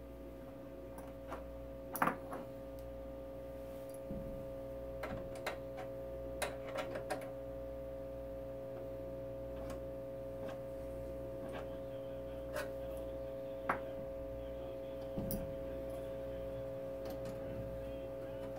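1940 Zenith 10S464 tube radio's speaker giving a steady hum while the set is brought up slowly on a Variac at about 100 volts. Scattered sharp clicks come as the band switch and tuning controls are worked, the loudest about two seconds in.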